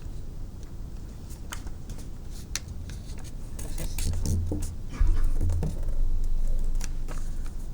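Sheet of paper being handled, folded and creased, with scattered crisp crackles and low rubbing and bumping against the work surface that grow louder about five seconds in.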